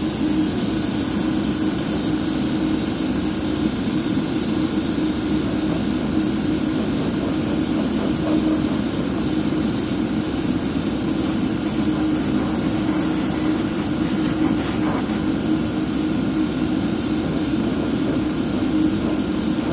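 Steady motor hum and hiss of air from an airbrush setup, as the airbrush sprays thinned paint.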